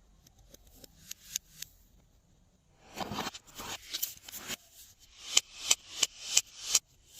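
Glossy slime being worked by hand, giving sticky clicking and crackling sounds. A denser patch comes about three seconds in, and near the end there is a run of about six sharp clicks, roughly three a second.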